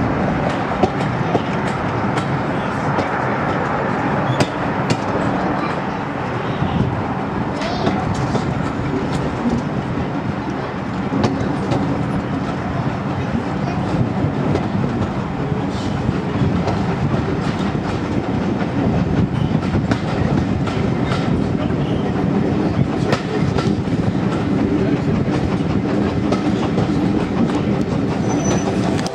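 Heritage railway carriage running along the line, heard from an open window: a steady rumble of the wheels on the track with repeated sharp clicks as they pass over rail joints.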